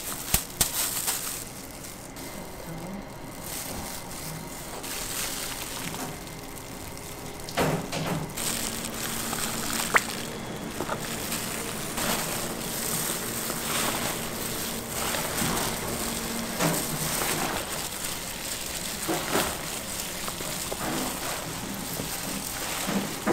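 Gloved hands tossing and squishing cooked macaroni, vegetables and mayonnaise in a steel bowl: wet, sloshing mixing noises. In the first second there are a few sharp clicks as the pasta and vegetables are tipped in from a plastic colander.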